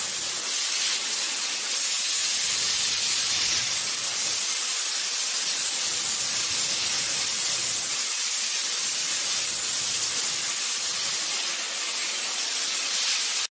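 Steady hissing spray of water under pressure, which cuts off abruptly at the end.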